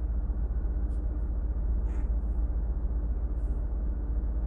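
Steady low machinery hum, with a few faint light taps over it.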